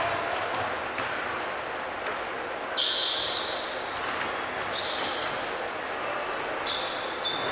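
Basketball game play on a hardwood gym floor: sneakers squeaking in short high chirps, the brightest about three seconds in, and the ball bouncing, over the echoing hum of the hall.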